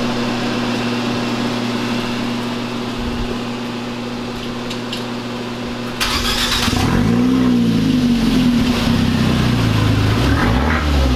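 A steady hum, then about six seconds in the Fiat 124 Spider Abarth's 1.4-litre turbocharged four-cylinder starts. It is revved several times, each rev rising and falling, with the exhaust open from the catalytic converter back (open dump, muffler and rear pipe removed).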